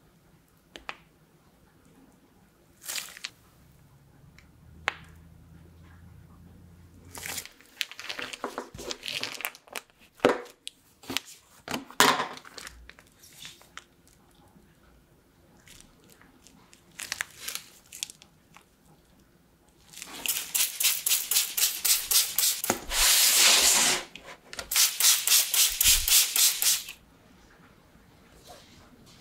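Plastic piping bag crinkling and rustling as choux dough is squeezed out onto a baking sheet: scattered small rustles and clicks, then a louder crackly cluster. Later comes a longer, louder run of rapid, evenly spaced rustling pulses.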